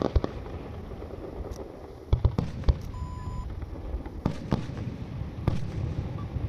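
Aerial firework shells bursting: a string of sharp bangs in small clusters over a low rumble, with a short electronic beep about three seconds in.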